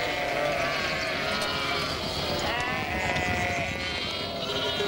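A large flock of ewes and lambs bleating, with many calls overlapping continuously.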